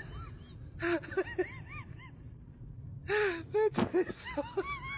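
A person laughing in three breathy bursts, each trailing off into short repeated 'ha' syllables. A sharp knock sounds just before four seconds in, and a wavering held tone begins near the end.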